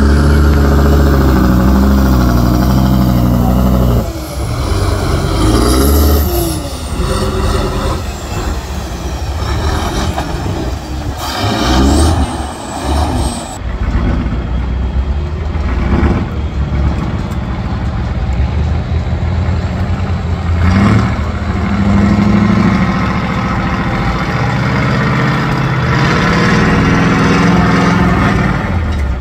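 Heavy off-road trial trucks' diesel engines revving hard under load. The first truck, ploughing through a water-filled ditch, is held at high revs for about four seconds, then its revs rise and fall. After a cut, a second truck's engine labours as it climbs a steep dirt slope.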